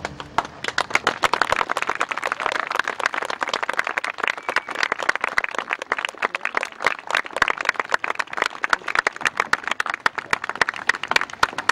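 An audience clapping and applauding steadily, with individual claps distinct, at the end of a performance.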